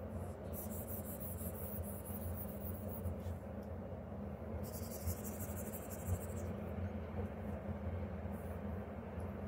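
A stylus and fingertips rubbing and tapping on the screen of a Huion Kamvas Pro 19 pen display, over a steady low hum.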